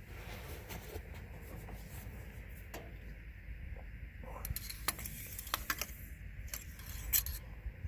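Scattered light metallic clicks and clinks, irregular and with no steady rhythm, from the tractor's oil dipstick being pulled out of its tube and handled during an engine oil check. The two sharpest clicks come just before the five-second mark and just after seven seconds.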